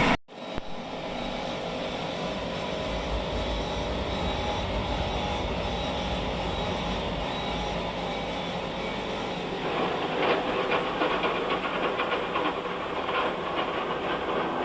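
Sawmill trolley machine running with a steady low hum. About ten seconds in, the hum drops away and a rougher, crackly rasp takes over, typical of the saw working through dry wood.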